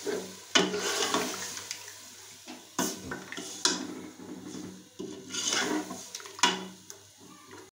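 Steel ladle stirring beef in a watery yogurt masala in an aluminium pressure cooker: wet sloshing with about five sharp strokes and scrapes against the pot. The yogurt has released its water during the frying (bhunai).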